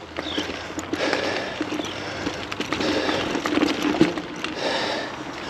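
Mountain bike rolling along a dirt trail: steady tyre noise on the ground with scattered clicks and rattles from the bike over bumps.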